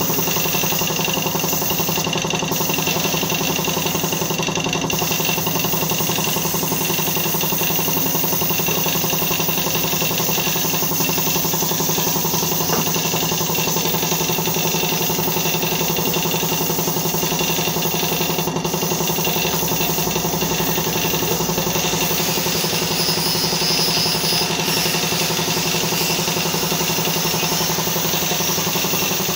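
Air compressor for spray painting running steadily, a constant motor hum with a steady high hiss over it.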